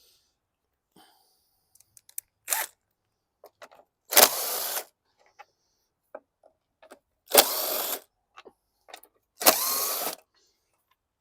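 Power tool spinning an 8mm socket in three short runs, each a brief rising whine, backing out the three bolts that hold a lawn mower's recoil starter, with small clicks of handling between.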